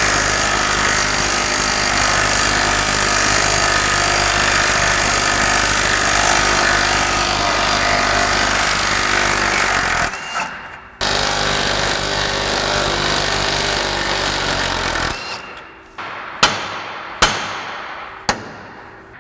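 Cordless impact wrench hammering on a nut at a GMT400 truck's front steering knuckle in a long steady rattle, with a short break about ten seconds in before it runs on for about four seconds more. It then gives way to a few sharp hammer blows on the steel knuckle, each ringing briefly.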